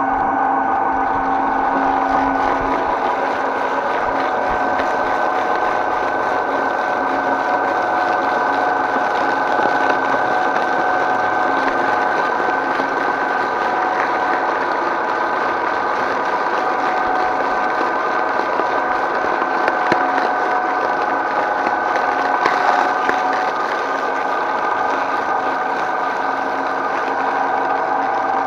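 Twin-shaft shredder running steadily, its motor humming as the cutters grind through plastic containers and creamy goo, with a few sharper cracks in the second half.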